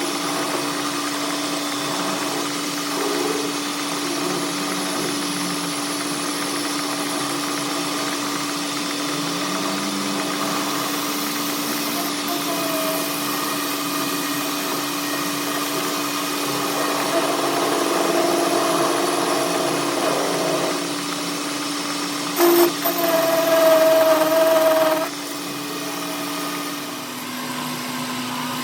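A machine running with a steady hum. It grows louder in the second half; after a short knock a higher whine sounds for a couple of seconds and then cuts off suddenly.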